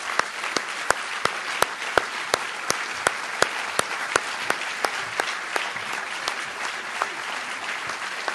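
Audience applauding in a theatre hall, a steady wash of clapping. One set of hands close to the microphone stands out with sharp, even claps about three times a second.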